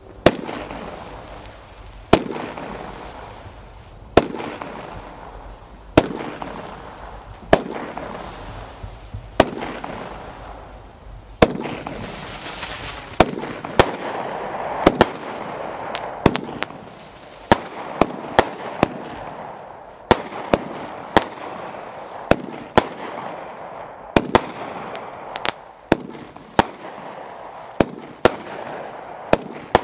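Saturday Night Special 36-shot consumer fireworks cake firing a volley. There are sharp shots about every two seconds at first, then they come faster, often less than a second apart, each followed by the fading hiss and crackle of the aerial burst.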